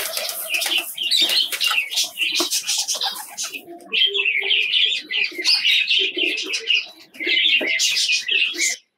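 Pet birds chirping busily and without pause, with pigeons cooing low underneath. Scattered clicks and knocks come from a wire cage being tipped and shaken out.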